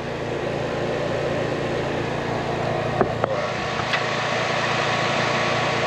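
Outdoor air-conditioning condenser unit energized and humming steadily with its contactor pulled in; the technician puts the unit's failure to cool down to a bad capacitor. A few light clicks come about three seconds in.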